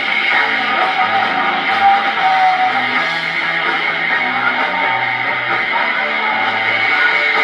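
Live rock band playing, guitar-led with strummed electric guitar over a moving bass line, in a poor-quality recording.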